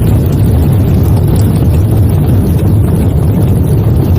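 Engine running steadily with a loud, low rumble.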